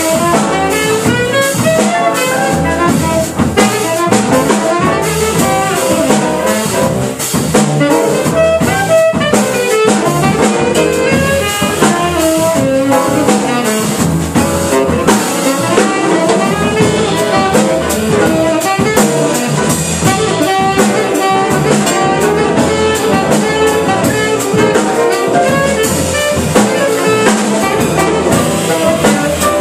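Small jazz combo playing, with a saxophone carrying the lead over upright bass, electric guitar, piano and drum kit.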